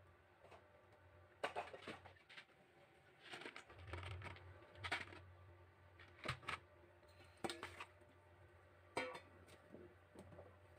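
Light knocks and clinks of cut vegetable chunks being handled and dropped into a stainless steel bowl, about eight separate taps spread unevenly over several seconds.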